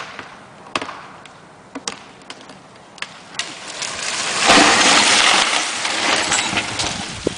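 A few sharp cracks, then about four seconds in a rising rush of breaking branches and leaves that peaks and slowly dies away: a tree crashing down through its crown.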